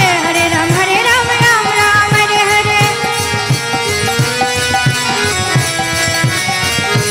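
Devotional kirtan music: a voice singing over sustained held tones, with a steady drum beat.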